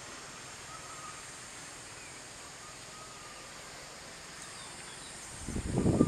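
Faint, thin bird notes over a steady outdoor hiss. Near the end a loud low rumble lasts about half a second.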